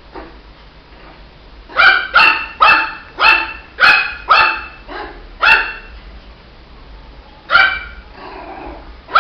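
Shih Tzu puppy barking: a quick run of about eight sharp barks, roughly two a second, then a pause and one more bark followed by a fainter one near the end.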